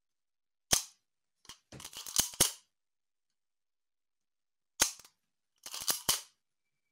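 Canon A-1 focal-plane shutter fired by hand with a screwdriver, with the mirror box out: twice, a sharp snap followed about a second later by a quick run of smaller clicks. It runs without any squeak, the sound of a healthy shutter.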